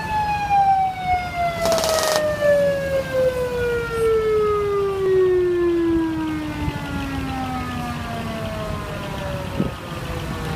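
A siren winding down: one long tone falling steadily in pitch over about nine seconds. A short burst of hiss comes about two seconds in.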